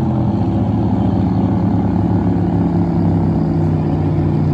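Water ski racing boat engines running hard as the boats tow skiers past, a steady engine drone whose pitch shifts slightly about the start and then holds.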